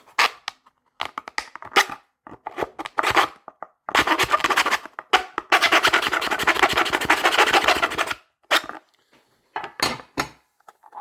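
Small hand file rasping along the edge of a cut-out slot, smoothing it: scattered short strokes, then a fast, continuous run of filing for a few seconds, then a few more strokes near the end.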